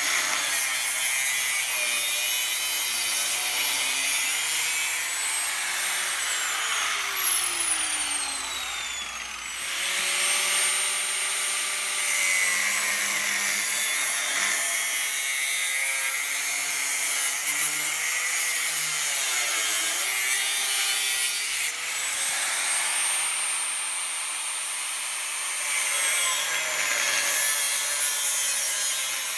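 Small angle grinder with a cutting disc slicing through the steel tubes of a Triumph T300 frame's rear subframe. The motor's whine sags and recovers as the disc bites under load, easing off briefly around a third of the way in and again later on.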